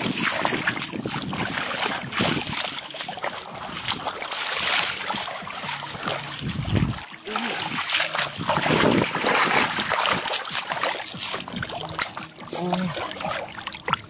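Shallow running water splashing and sloshing irregularly as people wade through it and work a hand landing net in it.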